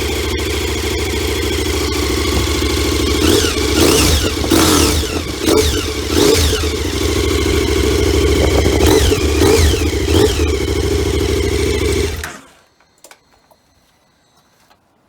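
KTM 1290 Super Adventure's V-twin engine running on its standard exhaust: idling, then a series of throttle blips that rise and fall in pitch, before the engine is switched off about twelve seconds in.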